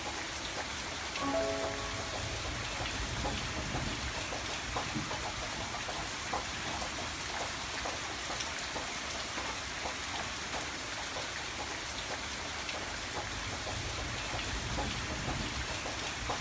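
Background music track of steady rain-like patter, with a few short soft notes about a second in.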